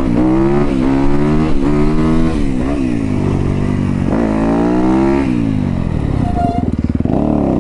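Yamaha YZ250FX dirt bike's four-stroke single-cylinder engine under way, its pitch climbing and dropping back twice as the throttle is opened and closed. It then runs lower and uneven on a closed throttle before climbing again near the end.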